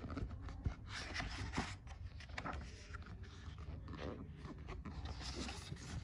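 Pages of a picture book being handled and turned: faint, irregular paper rustling and scraping.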